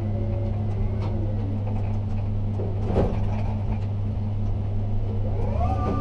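Ship-to-shore gantry crane machinery heard inside the operator's cab: a steady low hum, a single knock about halfway through, and near the end a drive whine that rises, holds and falls away.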